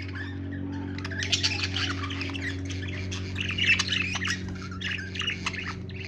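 Budgerigars chattering: a busy stream of short, high chirps and squawks starting about a second in, over a steady low hum.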